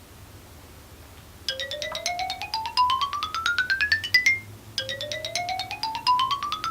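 Quick bell-like notes climbing steadily in pitch, played as a run twice over, each run about three seconds long, starting about a second and a half in: a cartoonish rising sound effect.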